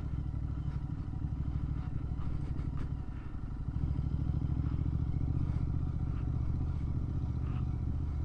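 Motorcycle engine running under way, with a steady low drone. It gets louder about four seconds in as the throttle opens, and a few light rattles come just before.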